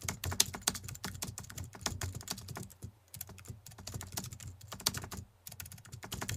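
Keyboard typing sound effect: a rapid, irregular run of key clicks, with short pauses about three seconds in and again about five seconds in.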